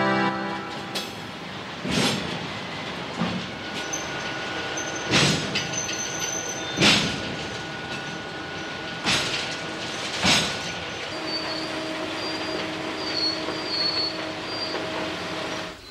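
Railway coal hopper wagons moving on the track: a steady rumble broken by sharp metallic clanks five or six times in the first ten seconds. Long, thin, steady squeals of steel wheels on rail run through the middle and latter part.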